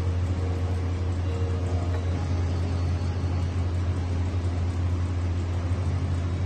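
Steady low machine hum with a constant hiss over it, unchanging throughout: the running noise of café equipment.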